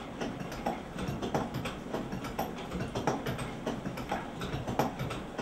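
Stone flour mill machinery running, with a steady run of light, irregular clacks, about two a second.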